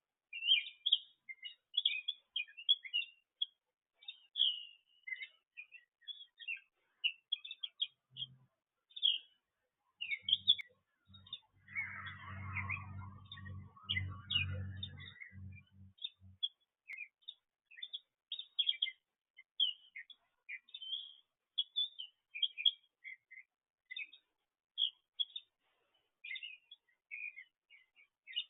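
Small birds chirping in many short, high, repeated calls throughout. A low hum runs underneath for about six seconds in the middle.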